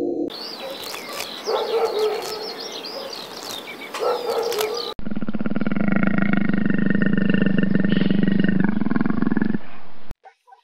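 Wolves' high yips and whines over a noisy background for the first few seconds. Then, from about five seconds in, a black panther's low, rapidly pulsing growl runs for about four and a half seconds and cuts off abruptly.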